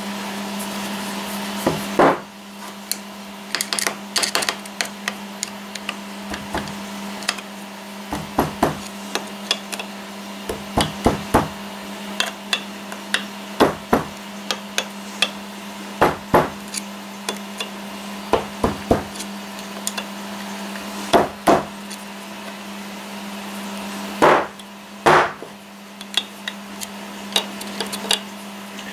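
Metal parts of a lathe's three-jaw chuck knocking and clinking as they are handled on a wooden workbench, in irregular sharp clicks and knocks. A steady low hum runs underneath.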